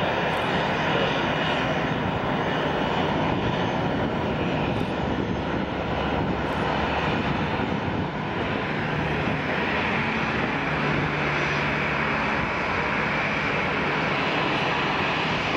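Boeing 737-800's twin CFM56-7B turbofan engines running at taxi power as the airliner taxis past: a steady jet rumble and hiss, whose high hiss grows stronger from about ten seconds in as the aircraft turns toward the listener.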